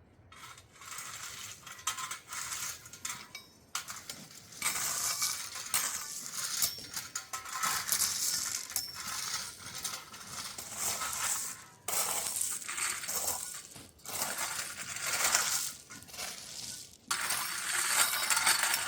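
Gravel being spread and levelled with hand tools: repeated scraping strokes with stones clinking against each other and against metal, each stroke lasting a second or two with short gaps between.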